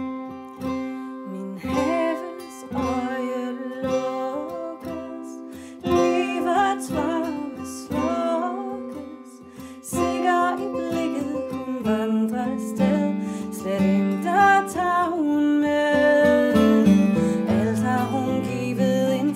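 Acoustic folk music: a fingerpicked acoustic guitar with a violin, and a woman singing in the second half, with lower guitar bass notes joining near the end.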